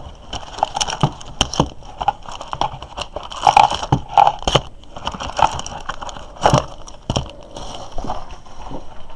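Retail box of football trading cards being opened by hand: irregular crackling and crinkling of the packaging, with many sharp clicks and snaps.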